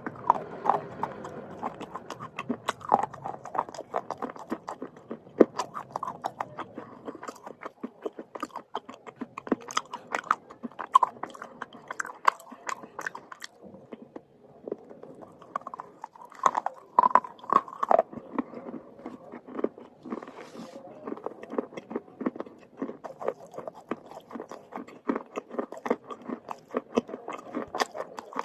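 Close-miked biting and chewing of black slate pencil sticks: rapid, irregular crunches and gritty snaps as the shale breaks between the teeth, pausing briefly about halfway through.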